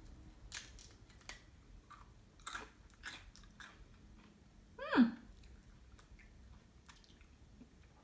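Crunchy ruffled potato chip being bitten and chewed, with several short crisp crunches spread out. About five seconds in, a short falling pitched squeak is the loudest sound.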